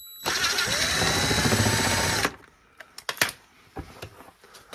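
Cordless impact drill running for about two seconds as it backs out a 7 mm screw from a car door panel. Its motor pitch rises as it spins up, then it stops abruptly. A few light clicks of the tool and screw follow.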